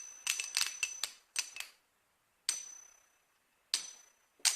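Fidget spinners clicking and clinking against each other or a hard surface, each hit leaving a short, high metallic ring. A quick cluster of clicks comes in the first second and a half, then single clicks about a second apart.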